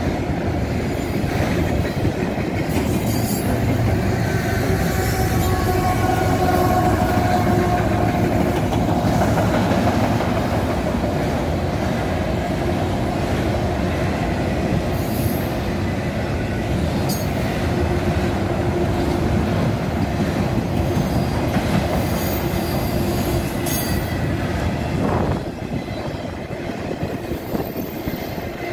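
Freight train of autorack cars rolling past: a steady rumble of steel wheels on rail, with thin wheel squeal at times and occasional sharp clicks and clanks. The sound eases slightly near the end.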